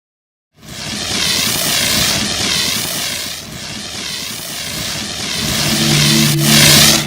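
Loud rushing, engine-like sound effect with a wavering, warbling upper edge, cutting in suddenly about half a second in. Steady low tones join it near the end, and it drops off sharply at the very end.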